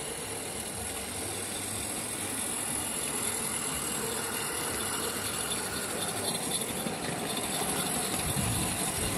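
G gauge live steam locomotive running along the track: a steady hiss with the rattle of its wheels and motion, growing slightly louder.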